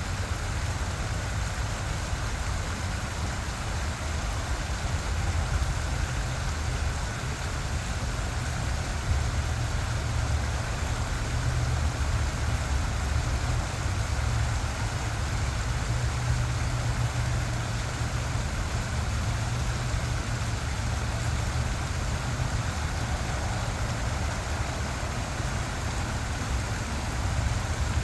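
Small waterfall, water rushing steadily with a deep low rumble under the splashing hiss.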